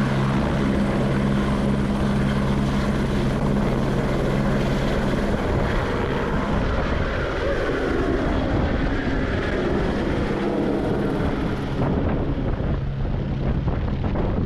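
Small drone's propellers buzzing in flight: a steady hum for about the first five seconds, turning into a rougher whir after that.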